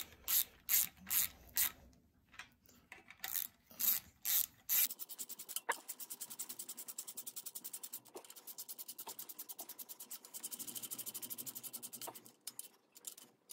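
Small hand ratchet running nuts down long studs on an oil pump cover, its pawl rasping in short back-and-forth strokes for the first few seconds, then a long run of fast, even clicks.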